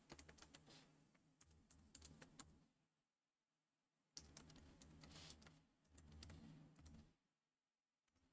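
Computer keyboard typing, faint, in three short runs of keystrokes with brief pauses between them.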